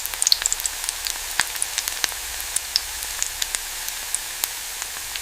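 A steady high hiss with many irregular sharp crackles and ticks scattered through it.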